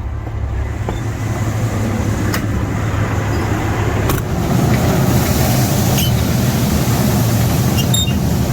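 A grain truck's engine running steadily alongside grain-handling machinery while shelled corn is unloaded into the pit, growing a little louder about four seconds in, with a few faint clicks.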